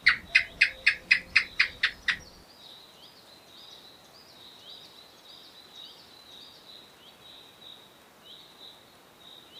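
House gecko calling: a rapid run of nine sharp chirps, about four a second, that stops after about two seconds. After that only a faint, steady high-pitched drone with soft chirps carries on in the background.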